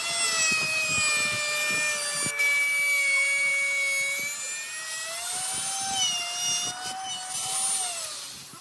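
Handheld electric router running with a high whine while its bit cuts a groove along a wooden board, the pitch wavering a little as it cuts. Near the end the pitch and level fall away.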